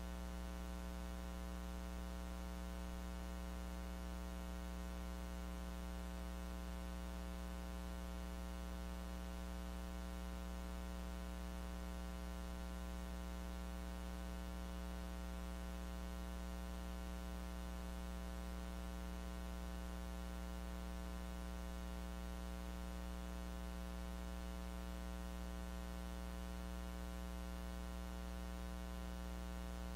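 Steady electrical mains hum with its stack of overtones over an even static hiss, unchanging throughout. The recording's audio carries no sound of the room, only this hum.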